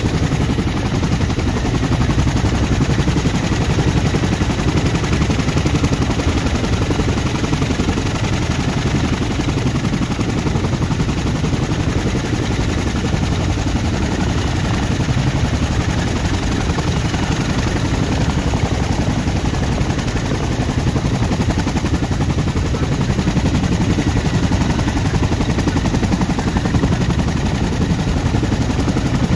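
CH-47 Chinook's tandem rotors turning on the ground with its twin turboshaft engines running: a loud, steady, rapid chop of rotor blades over the turbine noise.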